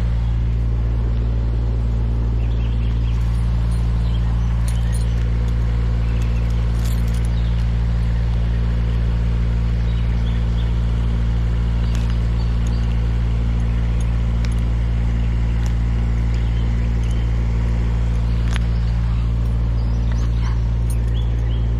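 An engine running steadily at a constant speed: a loud, even, low hum without changes in pitch, with faint scattered clicks over it.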